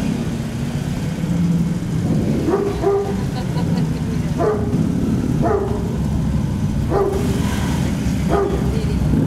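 A dog barking six times at uneven intervals over a steady engine rumble.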